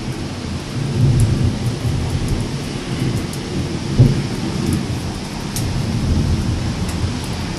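Thunder rumbling over steady rain, swelling about a second in, with a sharp, louder clap about four seconds in.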